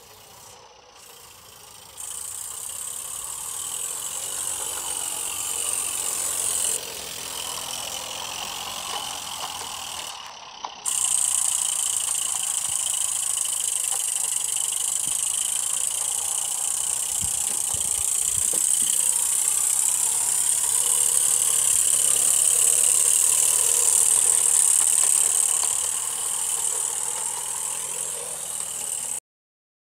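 Mamod Brunel live-steam locomotive running on its track, giving a steady hiss of escaping steam with some mechanical rattle.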